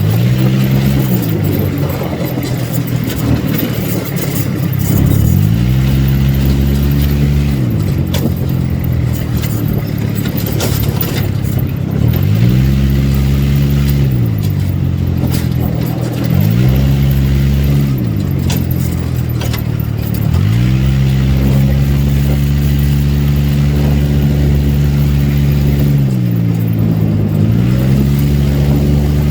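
ATV (quad bike) engine running under way, its pitch climbing and dropping about six times as the throttle is opened and eased.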